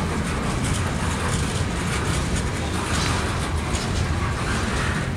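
Freight train cars (a boxcar and tank cars) rolling past at trackside: a steady rumble of steel wheels on rail that keeps an even level throughout.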